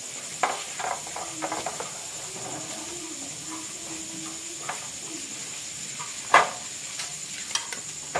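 Bee pupae being dry-roasted and stirred in a pan: the utensil scrapes and clicks against the pan over a faint steady sizzle, with one sharp knock about six seconds in.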